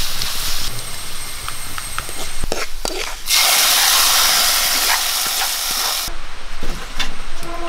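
Oil tempering of shallots, dried red chillies and curry leaves sizzling and crackling in a pan, then a louder, steady sizzle from about three seconds in as the hot tempering is poured into cooked dal, cutting off suddenly about six seconds in.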